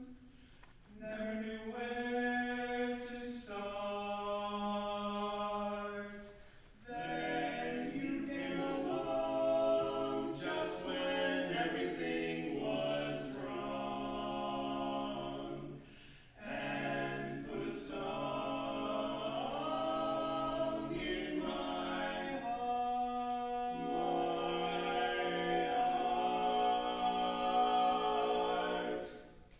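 Male a cappella quartet singing in four-part close harmony, in sustained phrases with short breaks between them.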